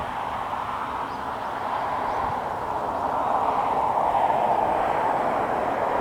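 Freight train of tank wagons hauled by an EH200 electric locomotive rolling past, a steady rushing rumble of wheels on rail that grows louder about halfway through.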